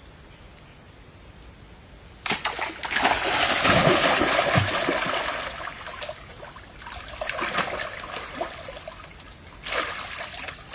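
Water splashing and sloshing. It starts suddenly about two seconds in, is loudest for a couple of seconds, then dies down, with a smaller burst near the end.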